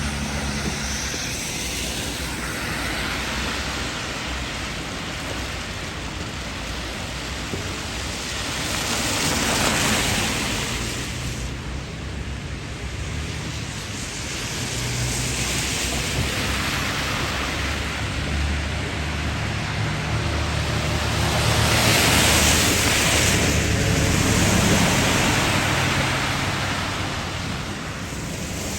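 Snowstorm wind gusting and rushing over the microphone, with a low rumble from the buffeting. It swells about ten seconds in and again for a few seconds past twenty seconds.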